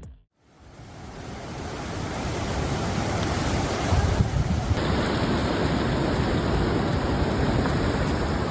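Storm noise: rushing water with wind buffeting the microphone. It is a steady dense noise that builds over the first couple of seconds and then holds.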